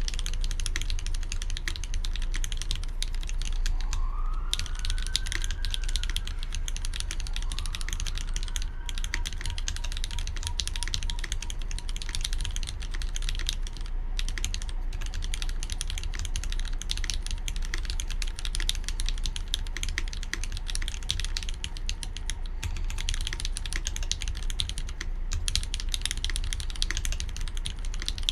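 Continuous typing on a Keycult No.1/65 mechanical keyboard with GHV4-lubed Cherry retooled black linear switches on 65 g springs: a steady, dense run of keystrokes.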